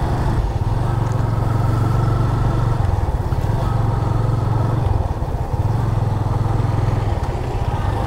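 Motorcycle engine running while riding, a steady low note that dips and picks up again a few times as the throttle changes.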